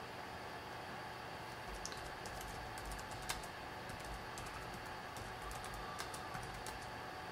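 Faint, irregular small clicks over a steady background hiss.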